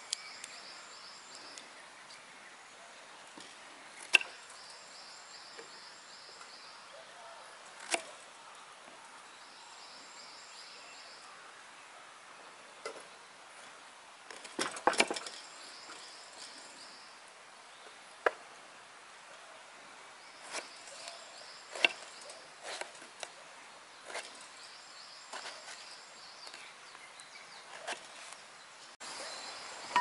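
Kitchen knife slicing an eggplant on a wooden cutting board: scattered sharp knocks of the blade striking the board, with a quick run of several near the middle.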